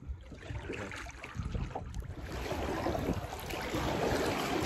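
Kayak paddle strokes dipping and splashing in river water, growing louder about halfway through.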